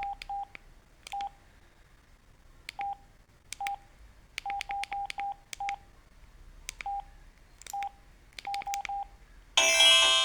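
Samsung SGH-E330N keypad tones: about sixteen short beeps at one pitch, each with a button click, as keys are pressed at an uneven pace, some in quick runs. Near the end, a loud polyphonic ringtone melody starts playing from the phone.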